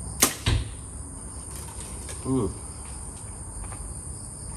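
A compound bow is shot: a sharp snap of the string on release, then about a quarter second later a low thud as the arrow strikes the foam target. Crickets trill steadily behind it, and a short falling vocal sound comes a little over two seconds in.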